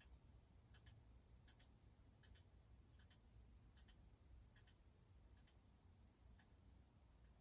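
Near silence, apart from faint ticking from a 2005 Northwest Envirofan Heavy Duty Gold Line industrial ceiling fan as it turns. A soft double click comes about every three-quarters of a second and thins out near the end, over a low hum.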